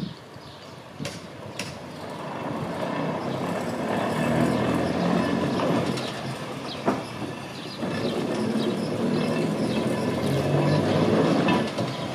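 Vintage double-deck electric tramcar running past on street track, its wheels rumbling on the rails with a low hum from the running gear. It grows louder over the first few seconds as it approaches. A single sharp click comes about seven seconds in.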